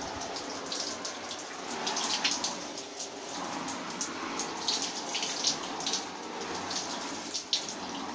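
Water poured over a Marmot down jacket, splashing and pattering on its water-repellent shell in a steady hiss with many sharp little spatters as drops hit and run off.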